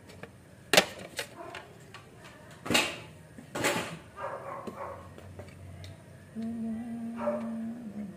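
Sharp plastic knocks and clacks as a head-unit mounting frame is handled, four of them in the first four seconds, the first the loudest. From about six seconds a steady held pitched tone sets in.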